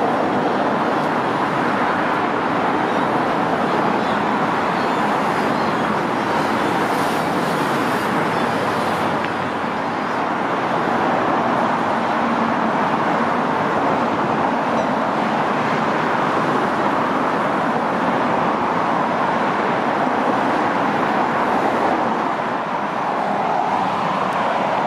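Steady road traffic noise from passing cars in a city.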